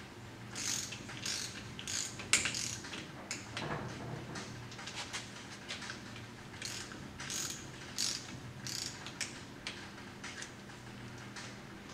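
Ratcheting socket wrench clicking in short, irregular runs as the nuts on a rear drum-brake backing plate are run down and snugged.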